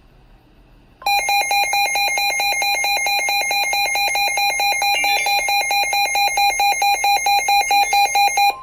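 Midland S.A.M.E. weather alert radio sounding its built-in warning alarm: a loud, rapidly pulsing electronic beep that starts about a second in and cuts off near the end. It signals that a warning, here a severe thunderstorm warning, has been received.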